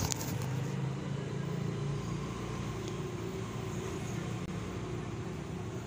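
A motor vehicle's engine running steadily out of sight, a low, even hum.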